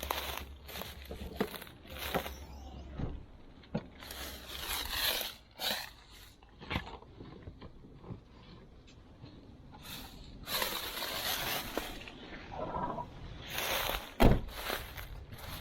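Irregular clicks, knocks and short scrapes of hand tools working on a tight part of a motorcycle, with one sharp knock near the end.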